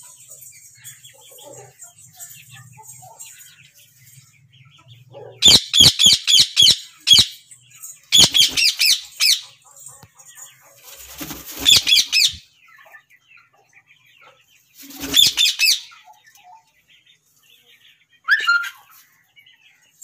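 Indian ringneck parakeets screeching in fast runs of sharp, high repeated calls. Four bursts of a second or two each start about five seconds in, and a single short call comes near the end.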